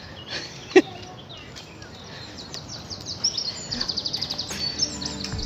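Songbirds singing, with a fast trill of high chirps building from about three seconds in. A single short, loud falling whine sounds about a second in.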